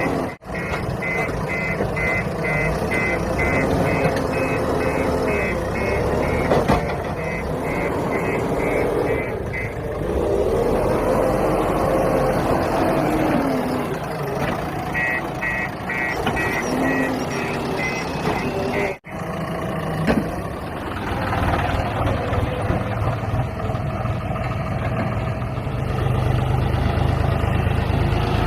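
JCB 3DX backhoe loader's diesel engine running under load, with its reversing alarm beeping about twice a second. The beeping stops about a third of the way in and comes back for a few seconds past the middle, while the engine pitch rises and falls.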